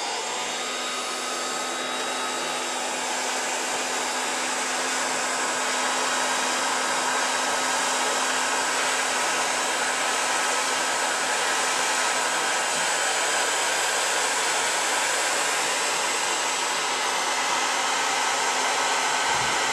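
Electric hot-air blower running steadily: an even rush of air over a constant motor hum, which spins up briefly at the very start.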